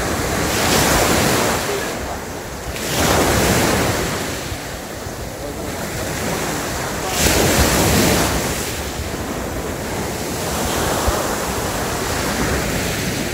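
Sea waves breaking and washing on the shore, swelling up in three or four long surges, with wind rumbling on the microphone.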